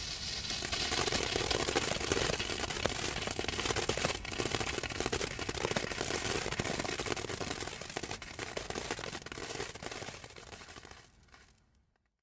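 Hand-held glitter sparkler burning with a dense crackling fizz of many tiny pops. It fades out near the end.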